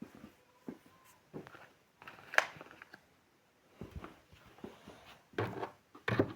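Items on a dressing table being handled, picked up and set down: scattered light knocks and clicks, with one sharper click about two and a half seconds in.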